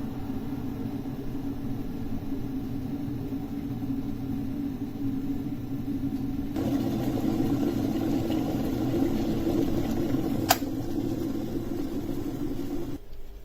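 Water heating in a glass electric kettle, a steady rumbling that grows louder about six seconds in as it nears the boil. A single sharp click comes about ten seconds in, and the rumbling stops abruptly near the end.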